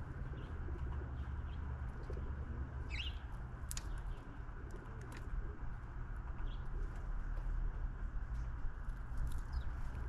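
Backyard birds at a feeder: a low cooing about two to five seconds in, a short rising chirp near the middle and a few other brief high chirps, with scattered sharp clicks. A steady low rumble sits underneath.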